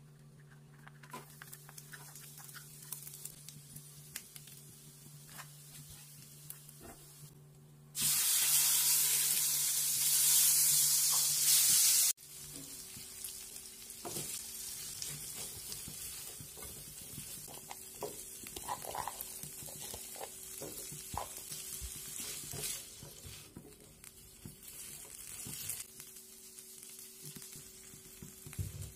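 Frying in a wok: a faint sizzle with small clicks, then about eight seconds in a loud hissing sizzle lasting some four seconds that cuts off sharply. After that comes a lighter, steady sizzle with the clicks and scrapes of stirring as winged beans and stink beans are turned through chili sambal.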